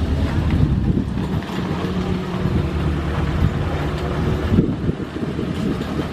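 Aircraft engine noise running steadily with a low pitched hum, with wind buffeting the microphone.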